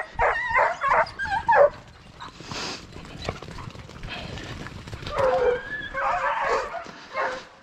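Hunting dogs yelping and whining in short, pitch-bending cries, with a quieter stretch in the middle before the cries start again about five seconds in.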